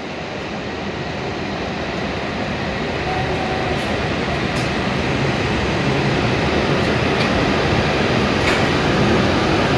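A W7 series Shinkansen train pulling out of the station, its running noise growing steadily louder as it gathers speed past the platform.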